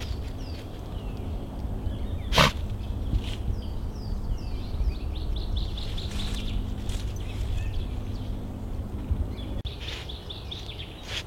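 Woodland birds chirping in many short, falling notes over a steady low rumble. There is one sharp click about two and a half seconds in.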